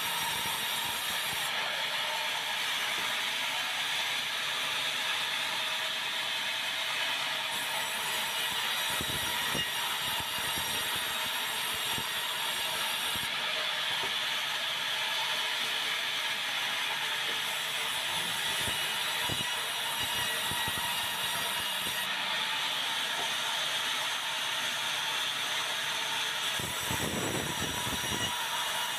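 Sawmill band resaw running steadily as it cuts white meranti into boards, a dense, continuous mechanical whine and rasp. A few low knocks come through it, with a longer low rumble near the end.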